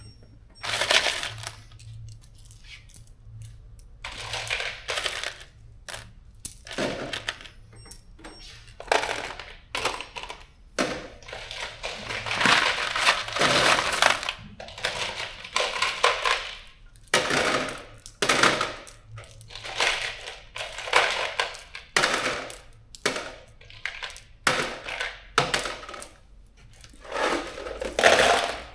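Steel bolts and nuts clattering and clinking in irregular bursts as handfuls are picked, counted and dropped into a bolt kit's compartments.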